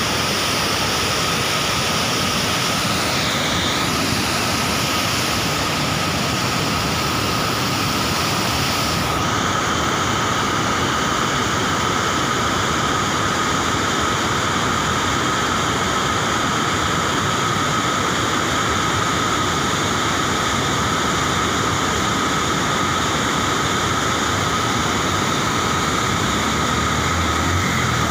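Steady rushing of a fast mountain stream and waterfall tumbling over rocks. The hiss in the sound becomes duller about nine seconds in.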